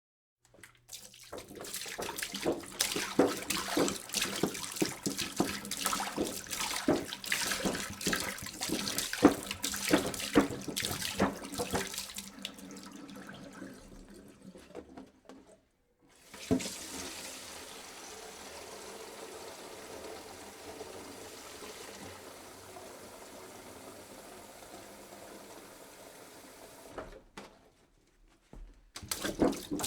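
Water being poured into a jug. The first pour is uneven and splashy and tapers off about fifteen seconds in. After a brief pause a second, smoother and steadier pour runs until near the end, and a third begins just before the end.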